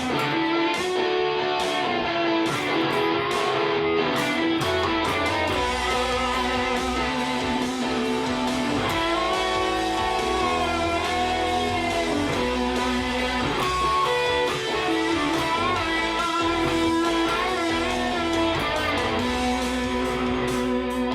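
Electric guitar improvising a lead line in B minor over a jam backing track, with held notes bent and shaken with vibrato. A bass line comes in about five seconds in.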